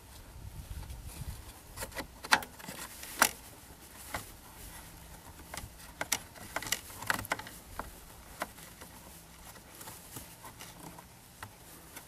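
Scattered light clicks and handling rustles as a shift-lock solenoid and its rubber boot are worked by hand into a 2011 Kia Sorento's plastic gear-shifter housing. The two sharpest clicks come about two and three seconds in.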